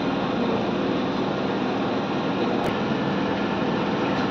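Steady mechanical noise with a low hum, with one sharp click about two and a half seconds in.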